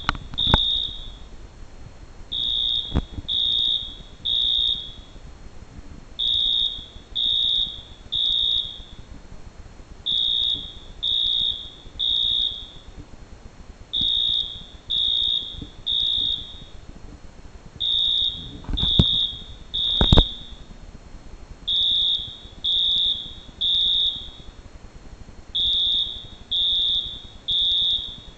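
Fire alarm horn sounding the Code 3 (temporal-three) evacuation pattern, set off by a pulled manual pull station: three short, high blasts, a pause, then the group repeats every four seconds. A few knocks fall between the blasts, the loudest two about two-thirds of the way through.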